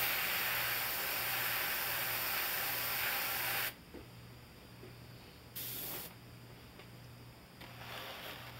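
Airbrush spraying white paint in short passes: a long hiss of air and paint for about three and a half seconds, then a brief second hiss a couple of seconds later and a fainter one near the end, over a low steady hum.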